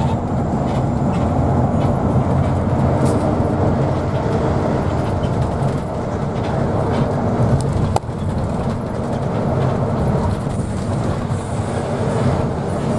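Steady low rumble of a moving vehicle, with a brief dip about eight seconds in.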